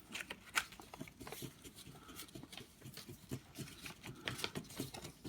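Scratch-off lottery ticket being scratched: faint, irregular short scrapes as the coating is rubbed off.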